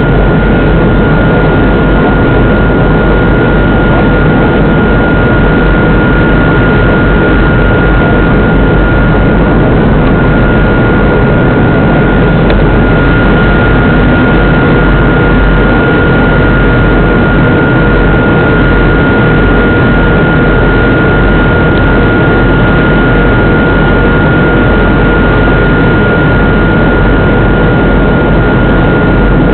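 Jet airliner's engines heard from inside the passenger cabin: a steady, loud rush with a constant high whine over it, unchanging throughout.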